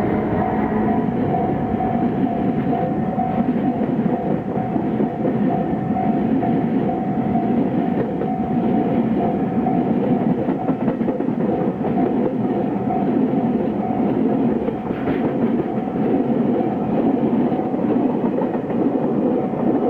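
Train passing over a level crossing, its wheels clattering over the rails without a break. A steady high tone runs underneath.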